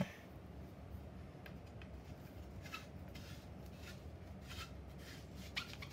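Pool cue chalk being rubbed onto the cue tip: a few faint, short scrapes about a second apart.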